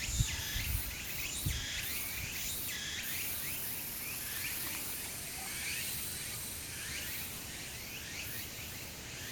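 Outdoor ambience: many short, high chirps repeating a few times a second, like small birds calling, over a steady high hiss.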